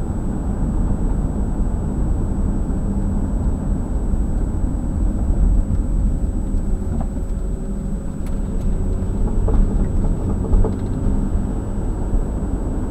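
A 2011 Acura MDX running with a steady low rumble. About two-thirds of the way in comes a quick series of about five or six knocks, the noise the owner is trying to track down.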